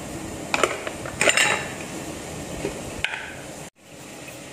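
A metal utensil clinking against a stainless steel soup pot: a few sharp clinks in the first second and a half and another about three seconds in, over the steady hiss of the broth boiling on the stove. The sound drops out for an instant near the end.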